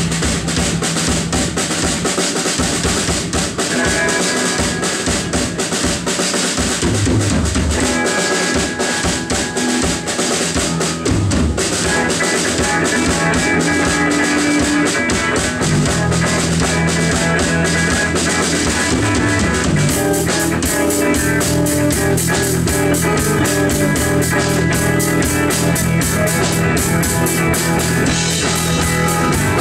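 Rock band playing live, with a drum kit keeping a steady beat under electric guitars.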